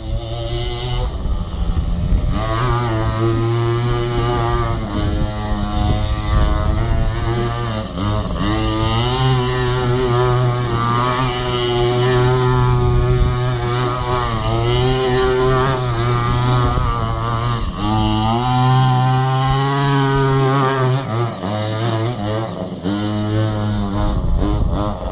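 Small two-stroke petrol engine of a 1:5 scale RC monster truck running under load, its pitch rising and falling again and again as the throttle is worked.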